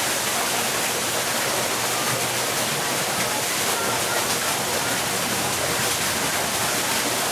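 Steady, even rushing noise, like running water, with faint voices mixed in.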